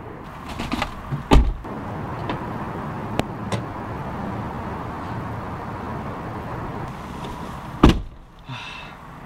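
Car door being opened and then shut with a heavy thump near the end, with a smaller thump about a second in and a few light clicks, over steady background noise.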